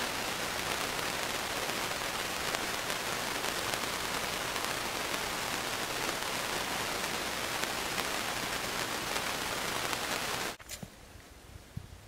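A steady, even hiss of outdoor noise, cutting off suddenly about ten and a half seconds in and leaving a much quieter background.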